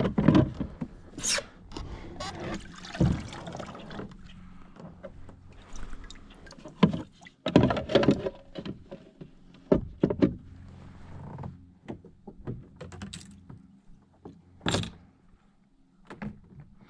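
Pedal drive of a pedal kayak being pulled up out of its hull well: irregular knocks, clunks and clicks of the drive unit and kayak fittings being handled.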